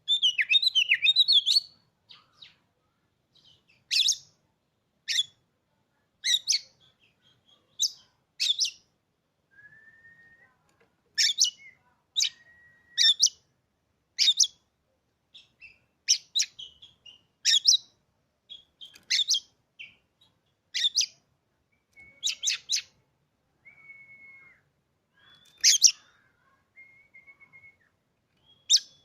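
Oriental magpie-robin (kacer) singing: a quick warbling phrase at the start, then a long run of short, sharp, harsh calls about once a second, with a few thin, level whistled notes slipped in between.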